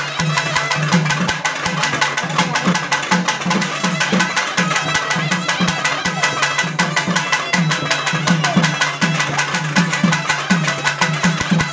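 Loud, fast traditional drumming: rapid sharp strokes over a repeating low drum pattern.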